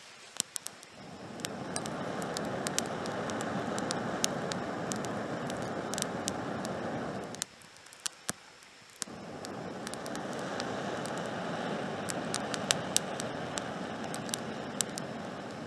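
Two long, steady breaths blown through a blow tube into a wood fire, each a rushing hiss of air with a short pause between them for a fresh breath, fanning the flames. Burning twigs crackle and pop throughout.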